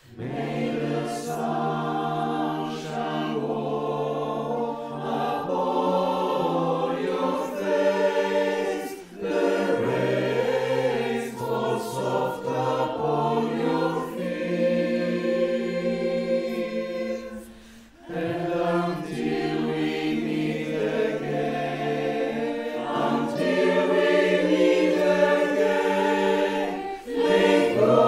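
Virtual choir of men and women singing in parts, each voice recorded at home and mixed together. The singing breaks off briefly between phrases about nine seconds and eighteen seconds in.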